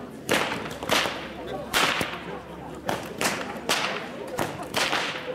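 Long traditional whips (Goaßl) cracked in turn by a team of women schnalzing in a rhythmic sequence: a sharp crack about every half second to second, nine or so in all.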